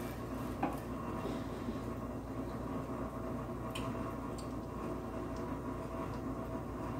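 Low steady kitchen hum with faint wet stirring of rice and stock in a stainless steel pan, and a few light ticks of the plastic spatula against the pan.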